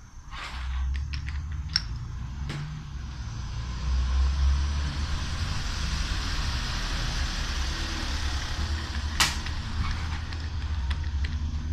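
A motor vehicle passing by: a low engine rumble with road noise that swells over several seconds and fades near the end. A few sharp clacks of plastic bottle caps set on the wooden board sound over it, the loudest about nine seconds in.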